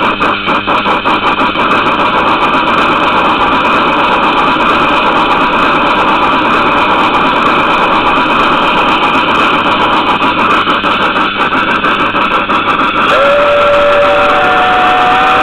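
Model-railway sound decoder playing a Harz Mallet steam locomotive through its small speaker. The exhaust chuffs quicken until they run together into a steady rush as the locomotive gets under way. Near the end a steam whistle starts: a chord of several tones that slides up slightly and holds.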